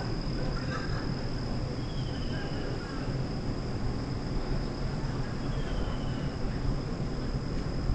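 Outdoor ambience: a steady low rumble with a constant high-pitched insect drone over it, and two faint short chirps, about two seconds and six seconds in.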